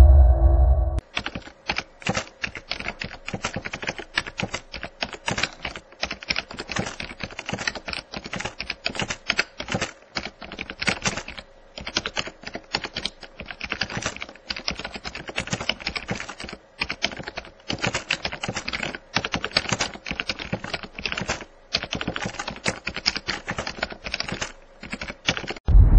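Rapid keyboard typing: quick, irregular key clicks with brief pauses, used as a sound effect for text typed out on screen. It starts about a second in.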